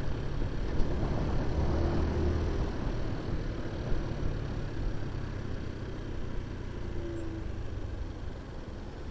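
QJ Motor SRV 125 motorcycle's engine and exhaust running at steady revs, the sound slowly getting quieter across the stretch.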